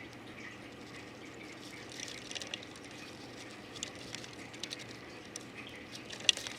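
Faint steady trickle of water with scattered small clicks and drips, and one sharper click near the end.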